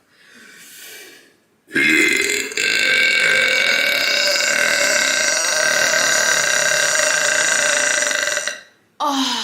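A woman's long, drawn-out burp lasting about seven seconds, held on a steady pitch, from a stomach bloated with carbonated seltzer. A short vocal sound falling in pitch follows near the end.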